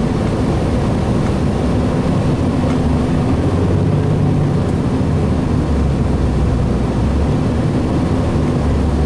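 Inside a 2007 Gillig Phantom transit bus at speed: its Cummins ISL diesel engine runs steadily under road and wind noise. The low rumble grows louder about halfway through.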